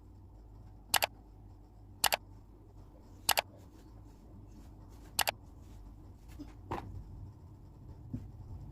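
Four sharp double clicks, each a quick pair of snaps, spaced one to two seconds apart in the first half, over a faint low hum.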